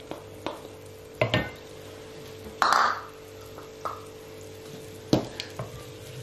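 A wooden spoon knocks and scrapes as chopped garlic is tapped out of a plastic bowl into a pan of melted butter and stirred. There are several sharp taps and a louder scrape about two and a half seconds in, over a steady low hum.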